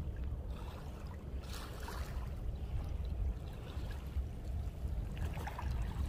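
Calm sea water lapping and trickling faintly at a pebble and shell shore, under a steady low rumble of wind on the microphone.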